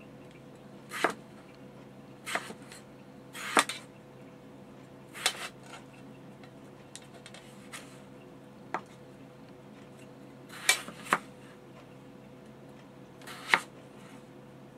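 Large kitchen knife slicing through yellow potatoes and knocking down onto a plastic cutting board, one unhurried cut every second or two, about eight in all, over a faint steady hum.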